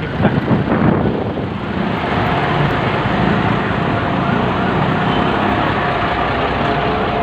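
Road traffic close by in a jam: bus and car engines idling and rumbling. From about two seconds in, a steady whine runs under the noise.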